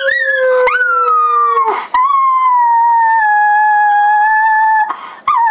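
A miniature schnauzer howling in long, drawn-out howls that sink slightly in pitch. For the first couple of seconds a man's lower howl sounds alongside it. Near the end the dog pauses briefly, then starts another howl.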